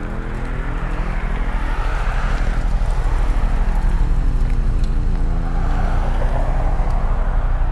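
Dodge Challenger's engine running at low speed as the car rolls in and slows, with the hum of its tyres on pavement. The sound grows louder over the first few seconds as the car comes close.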